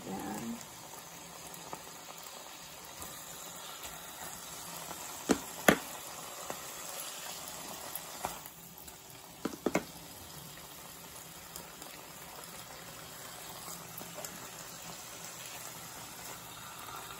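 Ham slices frying in a pan, a steady sizzling hiss. A few sharp knocks of the spatula against the pan, in pairs about five and a half and ten seconds in.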